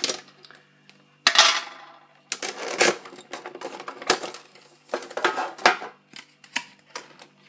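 A metal card tin and its clear plastic blister insert being handled and pulled apart: a sharp clatter about a second in, then a run of irregular plastic crackles and clicks.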